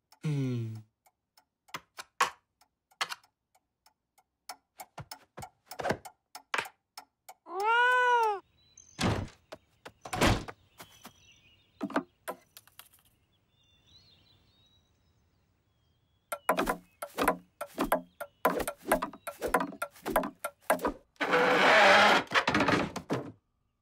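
Cartoon sound effects without music: scattered sharp clicks and knocks, a falling pitched glide right at the start, and a short pitched sound that rises and falls about eight seconds in. From about sixteen seconds a busy run of clicks follows, then a rasping scrape near the end.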